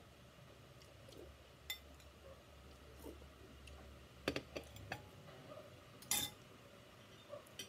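Metal spoon clinking and scraping against a glass bowl: a single clink, then a quick cluster of several clinks about four seconds in, and the loudest, slightly longer clink-and-scrape about six seconds in.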